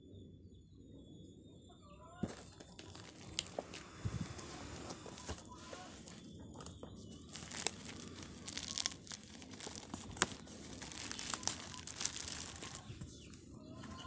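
Clear plastic wrapping and packing tape being pulled and torn off a cardboard box, crinkling and crackling with sharp snaps. It starts about two seconds in and is busiest in the second half.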